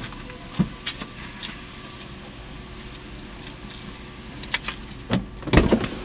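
Car door being opened from outside on a BMW E46 3 Series: a few light clicks, then a heavier clunk of the latch releasing about five and a half seconds in, over a faint steady hum.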